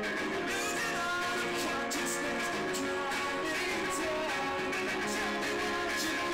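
Two acoustic guitars strummed together in a live duo performance, with a voice singing over them.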